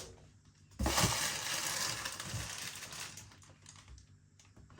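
Plastic packaging of frozen food rustling and crinkling for a couple of seconds as it is handled and unpacked, starting about a second in.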